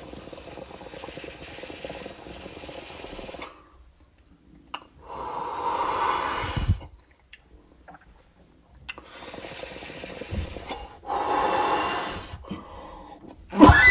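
A person drawing in smoke and breathing it out, twice: each long, quieter draw is followed by a louder exhale. A sudden loud sound comes right at the end.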